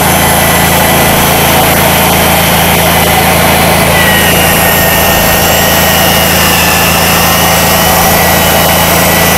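Electric drill with a mixing paddle running steadily, mixing the two-part epoxy saturant. A steady high whine from the motor gets stronger about four seconds in.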